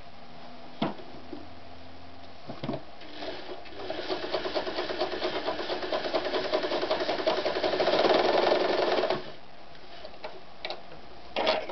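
Gritzner 537 electric sewing machine (built by Janome) stitching through a strip of leather-type material: a run of rapid needle strokes starts a few seconds in, speeds up and grows louder, then stops abruptly after about five seconds. A few sharp clicks come before and after.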